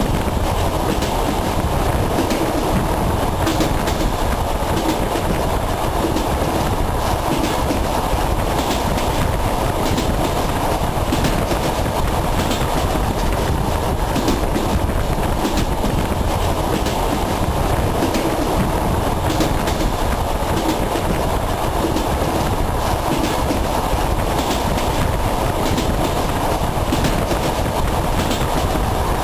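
Passenger train running at speed, heard from inside a carriage: a steady rumble with the wheels clicking over the rail joints.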